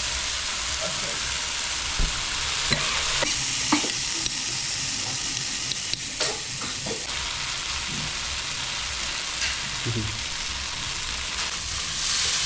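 Spiced chicken filling sizzling in a hot frying pan while it is stirred, with a little water just added. Occasional sharp clicks of the stirring utensil against the pan. The sizzle swells louder about three seconds in and again near the end.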